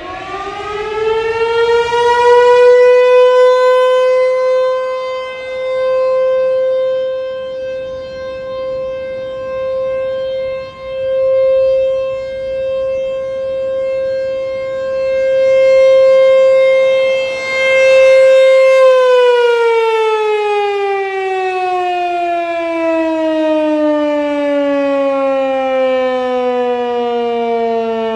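ASC T-128 tornado siren on its test run, winding up to a steady wail. It holds one pitch for about sixteen seconds, its loudness swelling and dipping every few seconds as it rotates. It then winds down, the pitch falling steadily through the last nine seconds.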